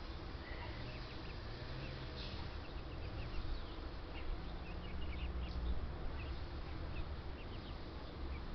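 Birds chirping: many short, high peeps scattered throughout, over a low steady rumble.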